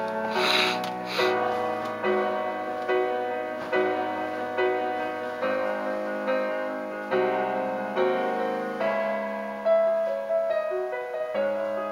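Slow piano ballad playing, with notes and chords struck at a steady pace of about one a second.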